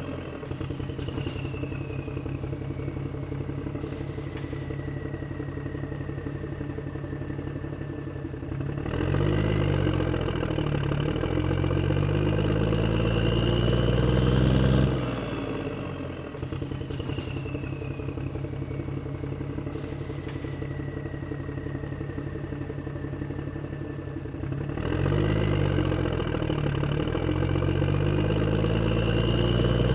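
An engine running steadily, then revving up and down for several seconds about nine seconds in, settling back, and revving again near the end. The sequence repeats almost identically about every 16 seconds, like a looped engine sound.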